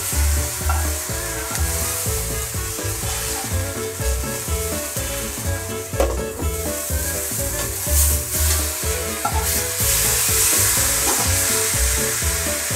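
Two large champignon mushrooms sizzling in oil in a cast-iron skillet, with metal tongs turning them. A few sharp clinks come about six seconds in, when a glass pan lid is handled.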